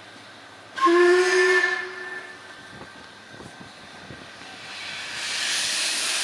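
Steam locomotive whistle sounding one blast, loud for about a second and then trailing off. From about five seconds in, a hiss of steam builds and holds as the locomotive blows steam from its cylinder drain cocks.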